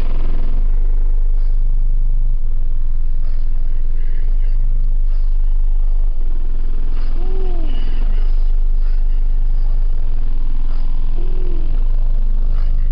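Loud bass music played through a single Sundown Nightshade 24-inch subwoofer inside a pickup's cab. Very deep bass notes swell and drop away in long blocks every couple of seconds, and twice a short tone slides up and back down.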